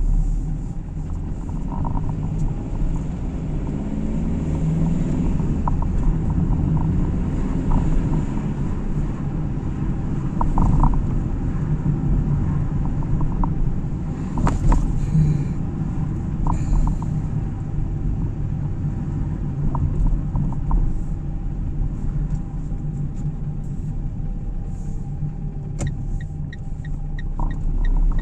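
A car driving at town speed, heard from inside the cabin: a steady low rumble of engine and tyres, with a few small scattered clicks. Near the end a fast, regular ticking starts.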